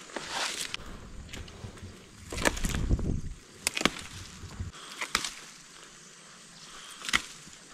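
Rustling with several sharp clicks or snaps, and a low rumble that cuts off suddenly a little past halfway.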